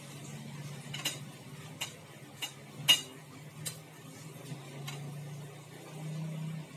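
Eating sounds while eating chicken heads: a series of sharp clicks and cracks, about six in four seconds, the loudest about three seconds in, over a steady low hum.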